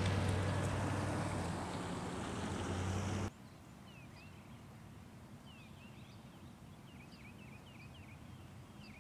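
A vehicle on a wet road with a steady low engine hum, slowly fading, cut off abruptly about three seconds in. Then a quiet outdoor background with small birds chirping in short rising and falling calls, again and again.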